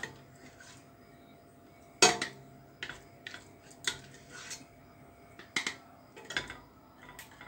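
A wooden spoon scraping and knocking against a stainless steel pot and a glass jar as the last of the apple jam is scooped out. There is one sharp clank about two seconds in, then scattered lighter clinks and knocks.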